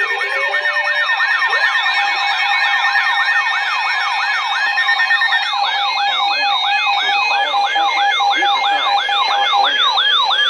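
Layered electronic siren-like alert tones. One tone sweeps rapidly up and down, about three times a second, over a second, higher and slower sweep. Two steady tones drop out partway through.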